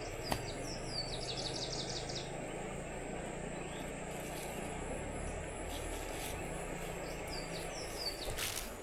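A small bird calling twice: a run of quick falling chirps and a fast trill in the first two seconds, and more chirps near the end. Underneath runs a steady rushing noise, likely the river, and a low steady hum.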